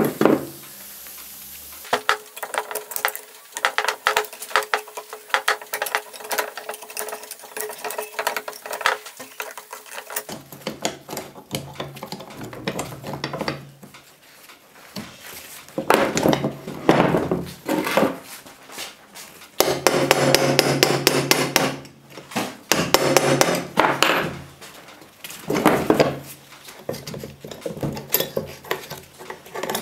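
Rusty steel parts of an old Hi-Lift jack's mechanism clinking and knocking as they are worked loose and taken out by hand. Quick sharp clicks come first, then longer stretches of metal clatter in the second half.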